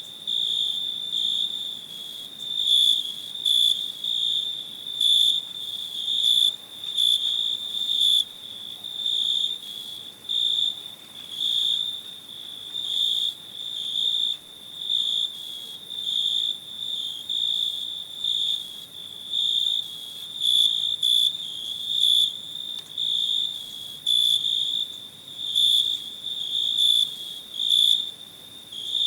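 Cricket chirping: a high, thin trill that swells in regular chirps about once a second.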